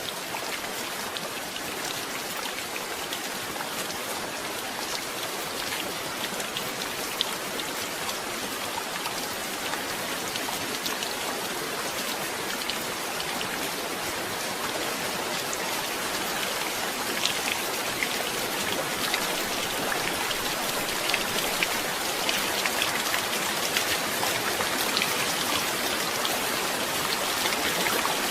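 Steady rain falling, with many small drops ticking over an even hiss and no thunder; it grows gradually louder.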